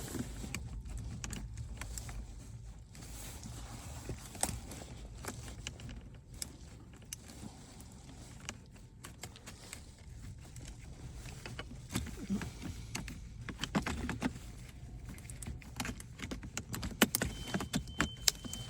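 Scattered clicks, taps and rattles of plastic console trim and wiring being handled around a car's gear shifter, over a low steady hum in the cabin. The clicks grow busier near the end, where a thin steady high tone sounds for a couple of seconds.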